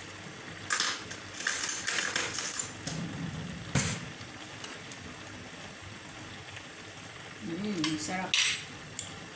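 Metal utensil clinking and scraping against a pan while a creamy sauce is stirred, in short clusters of clatter with one sharp clink about four seconds in.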